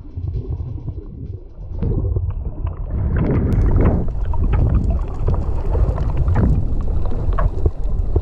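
Muffled rumble of moving water heard underwater, with crackling bubbles and splashes from snorkelers kicking just below the surface. It gets louder about two seconds in.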